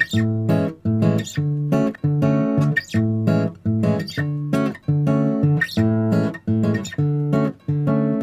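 Bossa nova background music: an acoustic guitar plays plucked chords in a steady, syncopated rhythm.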